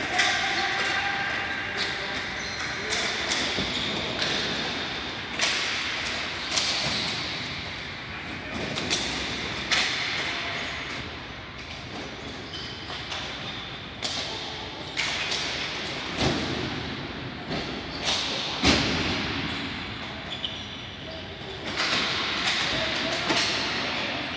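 Ball hockey play: irregular sharp cracks and thumps of sticks hitting the ball and the ball or players striking the boards, each hit ringing on briefly. Two heavier thuds come a little past the middle.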